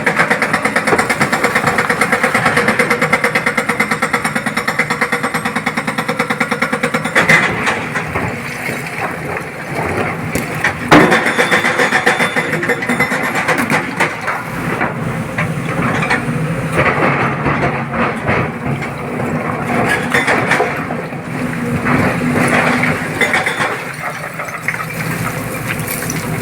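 Heavy diesel engine running with a fast, even pulse; from about seven seconds in, the sound turns uneven with scattered knocks and clatter of an excavator loading rock, and one loud bang about eleven seconds in.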